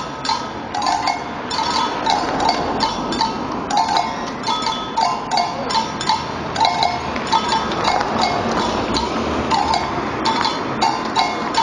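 Samba street percussion band playing a steady rhythm: sharp drum and stick strikes with ringing metal bell strikes coming back every half second or so.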